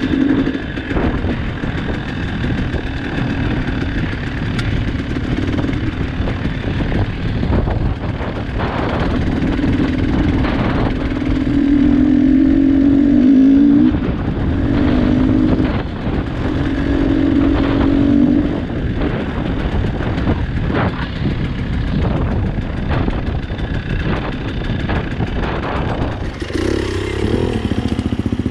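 Trail motorcycle engine running while riding, its note rising and falling as the throttle is opened and closed, over a constant low rumble. About 26 seconds in the engine note shifts higher and wavers.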